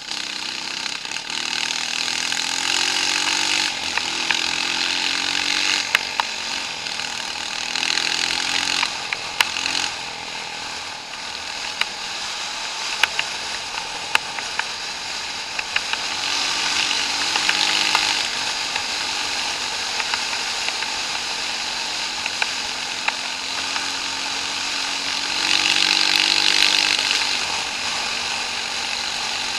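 Vehicle engine on an off-road trail, revving up and down in stretches, with rough rattling noise and scattered knocks from the bumpy ground.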